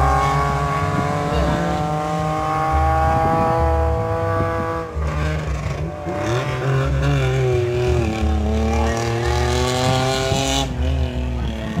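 Rally car engine revving hard on a dirt stage, its pitch climbing, dropping around five seconds in and climbing again as the driver shifts and lifts between corners.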